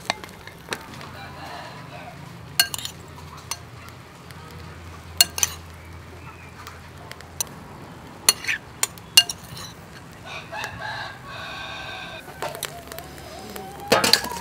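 Charcoal grill crackling under clams cooking in their shells, with sharp pops scattered through, loudest in a quick cluster past the middle and again near the end. A rooster crows once, starting about ten seconds in and lasting a couple of seconds.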